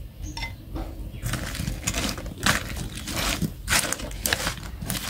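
Slices of ambarella dropping into a stainless steel bowl of salted crab, then chopsticks tossing the mix and clicking against the metal bowl over and over.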